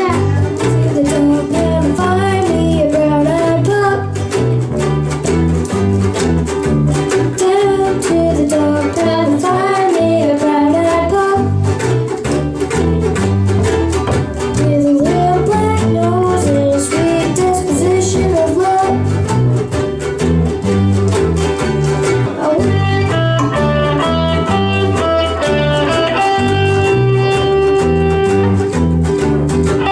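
A children's band playing a blues song on three-string DoSo (Loog-style) guitars, acoustic and electric, with a girl singing the melody into a microphone. About two-thirds of the way through the singing drops out and the guitars play on alone with held notes.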